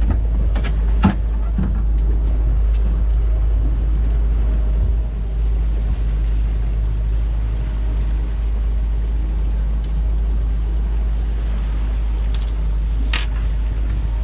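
Small boat's outboard motor running steadily, a loud low rumble. A few sharp knocks on the deck come in the first couple of seconds.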